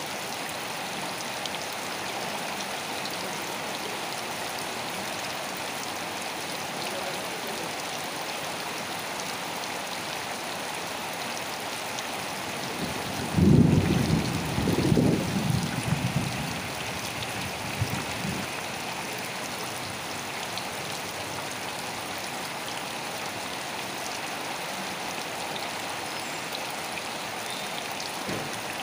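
Steady rain falling with an even hiss. About halfway through, a low rumble starts suddenly and rolls on in several swells for about four seconds, the loudest sound in the stretch.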